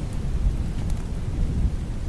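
Thunderstorm ambience: a low rumble of thunder under steady rain, with a few faint crackles.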